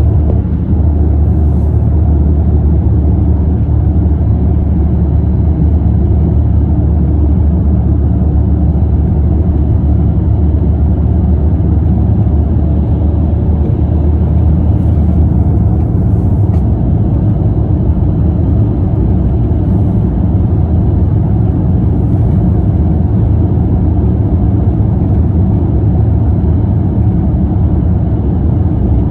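Car driving at a steady pace, heard from inside the cabin: a constant low rumble of road and engine noise.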